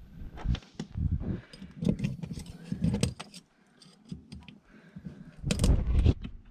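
Irregular metallic clinking and rattling of hand tools being handled, like keys jangling, with a louder cluster of knocks near the end.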